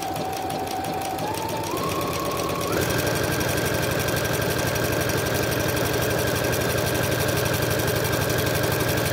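Electric sewing machine stitching a lightning bolt stretch stitch through double brushed poly knit. The motor whine steps up in pitch three times in the first three seconds as the machine speeds up, then runs fast and steady with a rapid needle rhythm.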